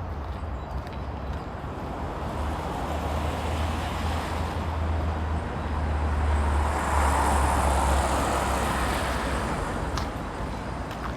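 A road vehicle passing, its tyre and road noise swelling to a peak about seven seconds in and then fading, with wind rumbling on the microphone.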